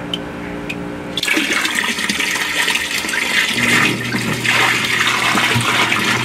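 Water pouring from a five-gallon bucket and splashing into water in a sump pit, starting about a second in and running steadily. A low steady hum sets in about halfway through, most likely the sump pump's motor switching on as the water reaches the top sensor.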